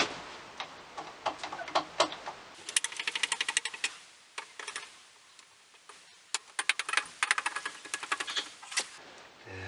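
Rapid, even mechanical clicking in two runs, one of about a second and a later one of about two and a half seconds, with a few scattered single clicks and knocks around them.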